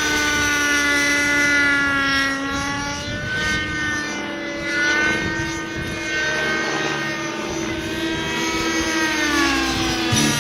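Thunder Tiger Raptor 50 Titan radio-control helicopter in flight, its nitro engine and rotor whining with the pitch gliding up and down as it manoeuvres.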